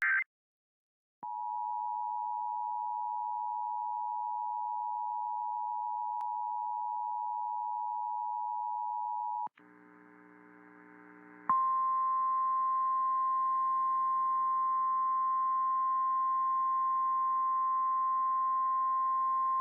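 Emergency Alert System tones relayed over FM radio for a severe thunderstorm warning. A steady two-tone attention signal sounds for about eight seconds. After a short gap, a single steady, slightly higher warning tone sounds for about nine seconds over faint background audio.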